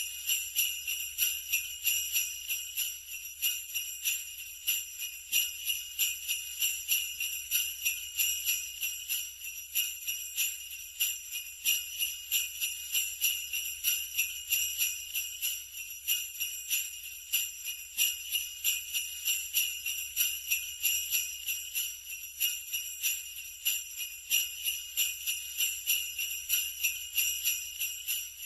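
Sleigh bells jingling, shaken in a steady rhythm of about two to three shakes a second.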